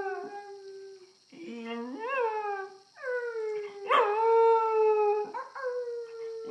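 Small black curly-coated dog howling: a run of about four long, drawn-out howls with short breaks between them, several bending upward in pitch with a yelping rise at their start.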